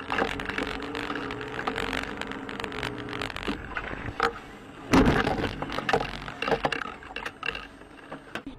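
Car driving, heard from inside the cabin: engine and road noise with rattles and clicks, and a steady tone for the first few seconds. About five seconds in there is one loud, sudden thump, likely the collision.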